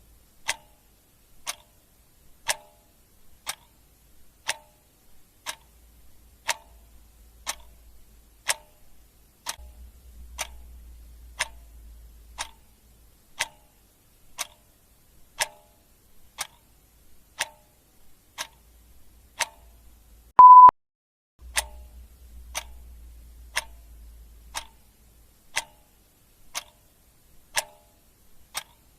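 A clock ticking steadily, about one tick a second. About two-thirds of the way through, a single short, loud, high beep sounds once.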